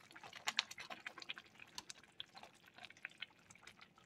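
A pot of greens simmering: faint, irregular bubbling and popping from the boiling cooking liquid.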